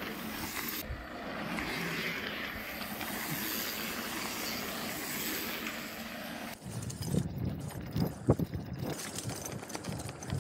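Steady wind rush on the microphone during a ride, with no clear engine note. About six and a half seconds in it cuts off and gives way to irregular knocks and rattles.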